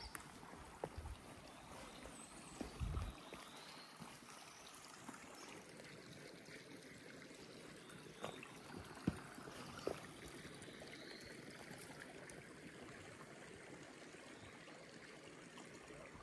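Faint, steady rush of running water, like a small stream, with a few scattered light knocks.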